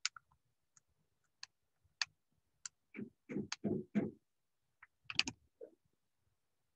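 Scattered sharp clicks and taps, keyboard- or mouse-like, over video-call audio that drops to silence between sounds. A few short muffled voice sounds come about halfway through and again near the end.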